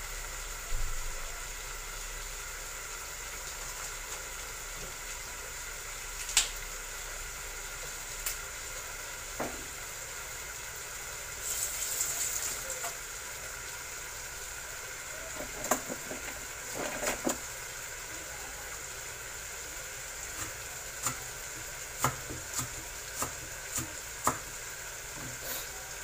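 Chicken pieces frying in oil in a lidded frying pan: a steady sizzle with scattered pops and crackles, more frequent in the second half.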